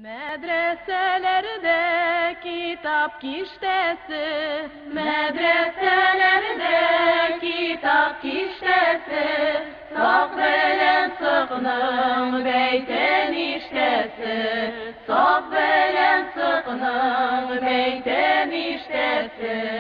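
Music: a Tatar folk song, sung with a strong wavering vibrato on long held notes.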